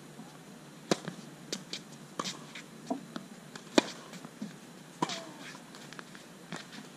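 Tennis rally on a hard court: a string of sharp pops from the ball being struck by racquets and bouncing, about eight in all, unevenly spaced. The loudest crack, about four seconds in, is the near player's forehand.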